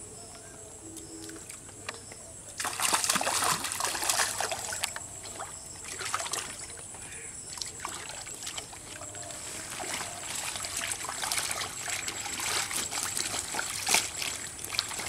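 A hooked fish splashing and thrashing in shallow pond water as it is hauled in on a float line, starting suddenly about three seconds in and going on in uneven bursts.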